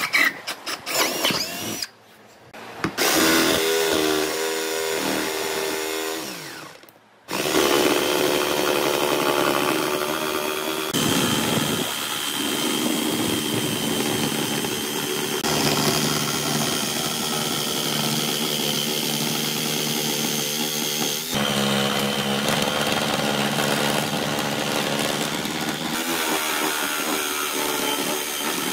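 Electric drill boring a starter hole through a pine board, in short cut-up bursts. Then, from about seven seconds in, a corded jigsaw runs steadily as its blade saws through the pine along a marked circle.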